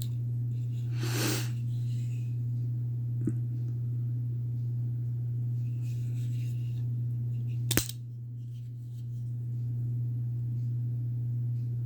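Benchmade Presidio automatic axis-lock knife being worked by hand: a short scraping rasp about a second in, a faint click a couple of seconds later, and one sharp metallic snap near the end as the spring-driven blade fires or locks. A steady low hum lies under it all.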